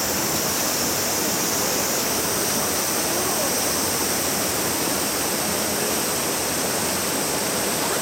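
Steady, even rush of falling and flowing water from a waterfall and stream.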